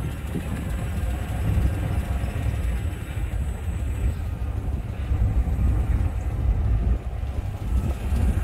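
A car driving slowly: a steady low rumble of engine and road noise, with fluctuating low buffeting.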